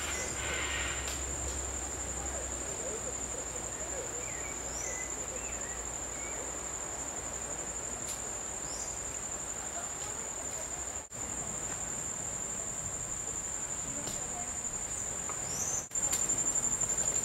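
Rainforest insects trilling: a steady, high-pitched drone with no break. A few short falling chirps sound over it. The drone cuts out briefly twice and is louder after the second break, near the end.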